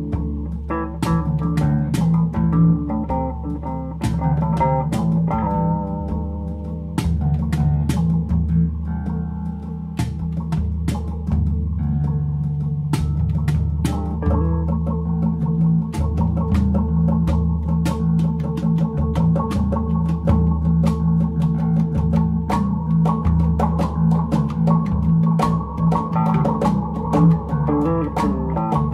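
Background music: plucked guitar and bass over a drum beat.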